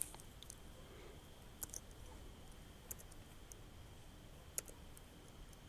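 A few computer keyboard keystrokes: about eight sharp, separate clicks at an uneven, slow pace.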